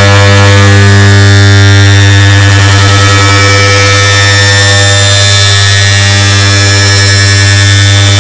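Air conditioner start-up sound, stacked and amplified in editing into a very loud, distorted, steady electrical hum with a strong low buzz, many overtones and a hiss.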